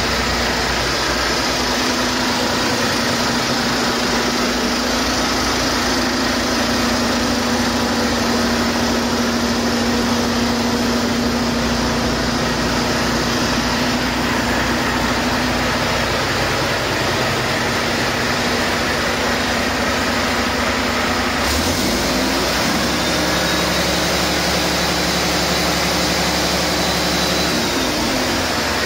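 2018 Volvo D13M 13-litre inline-six turbo diesel, rated 455 hp, running on a test stand out of the truck for a test run. It runs steadily. About three-quarters of the way through its tone shifts and holds a new steady note for several seconds before changing again near the end.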